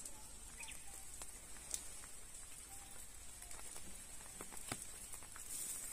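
Quiet outdoor ambience: light footsteps on a paved path heard as scattered soft ticks, with a few short faint chirps and a steady faint high hiss.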